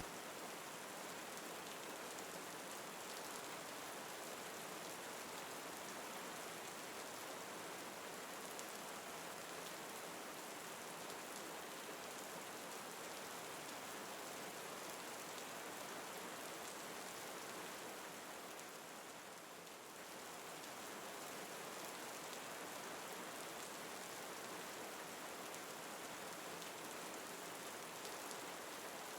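Steady rain falling, a soft even hiss, with a brief dip in level about two-thirds of the way through.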